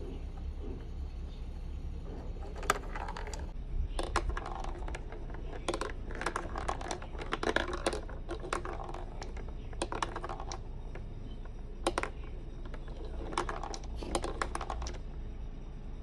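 Marbles running down a plastic marble-run track, clicking and clattering in irregular clusters of sharp taps every second or two, over a steady low hum.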